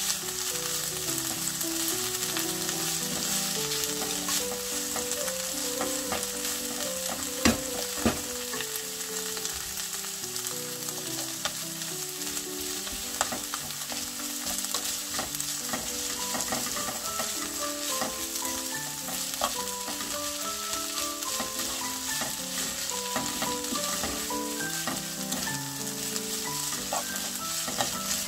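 Sweet potato stems and onion sizzling in a hot frying pan as they are stir-fried and tossed with spatulas. There are two sharp knocks of a spatula against the pan about a quarter of the way in.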